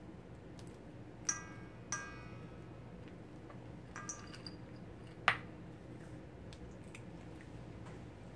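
Hand-crushed pecan pieces dropping onto a stainless steel mixing bowl: a few light metallic clinks that ring briefly, about a second in, near two seconds and at four seconds, then a louder, sharper click a little after five seconds.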